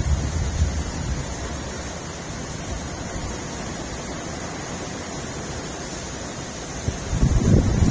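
Heavy downpour of rain, a steady hiss. Gusts of wind buffet the microphone with a low rumble in the first second or so and again near the end.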